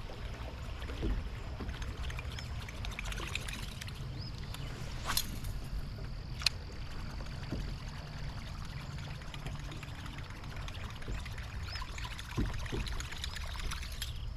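Kayak on a creek: water trickling and lapping around the hull, with a steady low rumble and a few light knocks, one sharper knock about halfway through.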